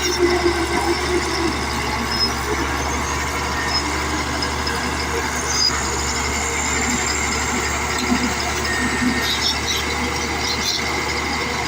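Caterpillar D8 crawler bulldozer working, its diesel engine running steadily under load with the clatter of the tracks, and a thin high squeal about halfway through.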